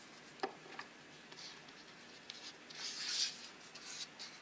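Faint handling sounds of hands working with small model parts: a light tap about half a second in, a few small ticks, then a short scratchy rub around three seconds in.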